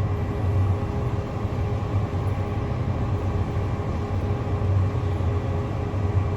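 Sports car engine idling with a steady deep rumble.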